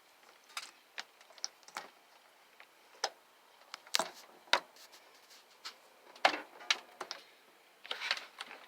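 A dozen or so sharp clicks and taps at uneven intervals, from working the gas control knob and igniter at a Norcold RV refrigerator's control panel, with a short scuffle near the end.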